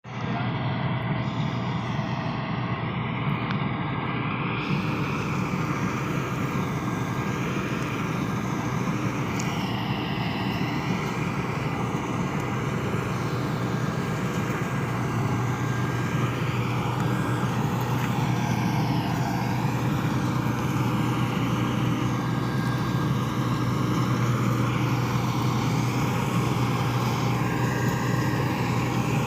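8080 Powershift combine harvester running steadily while cutting rice paddy, a constant low engine drone that holds the same pitch throughout.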